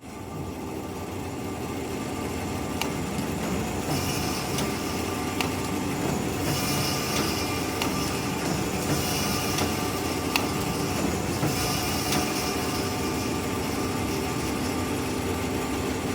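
Sugiyama twin-spindle paper drilling machine running: a steady motor and blower noise, with several brief hissing surges and a few light clicks.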